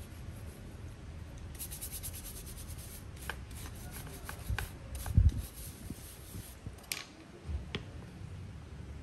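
Small hand brush scrubbing a red-footed tortoise's shell in quick back-and-forth strokes, starting about a second and a half in. A dull thump about five seconds in is the loudest sound, followed by a couple of sharp clicks near the end.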